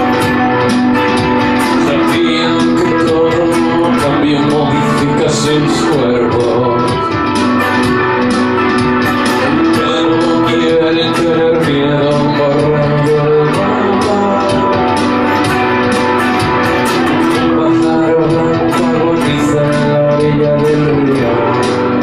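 Live indie rock played on an electric guitar over sustained chords and a steady ticking beat.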